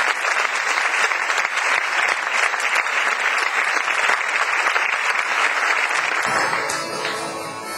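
Audience applauding, a dense patter of many hands clapping, which dies away about six seconds in as music comes through underneath.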